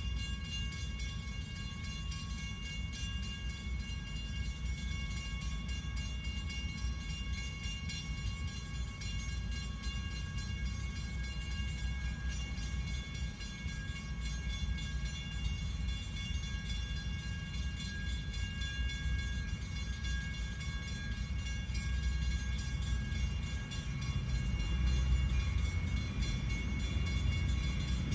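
A train passing with a steady low rumble, growing louder over the last few seconds.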